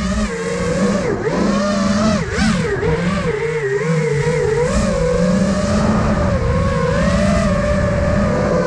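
FPV racing quadcopter's (iFlight Nazgul Evoque F5) electric motors and propellers whining at high throttle, recorded onboard, the pitch wavering up and down quickly with each throttle change.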